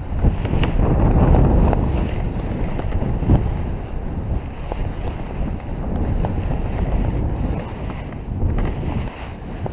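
Airflow buffeting the microphone of a camera worn by a paraglider pilot in flight: a loud, uneven rumble that keeps swelling and fading.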